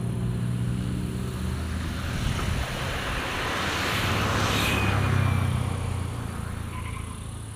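A heavy truck driving past, its engine hum and road noise swelling to the loudest point about five seconds in and then fading away.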